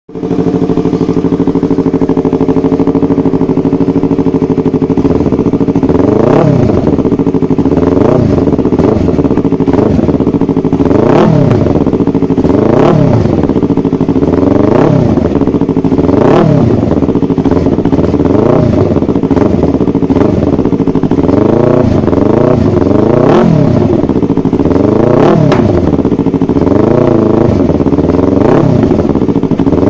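A Yamaha YZF-R25's parallel-twin engine, breathing through an aftermarket Yoshimura exhaust, idles steadily for about five seconds. It is then revved in short blips again and again, each one rising and falling in pitch.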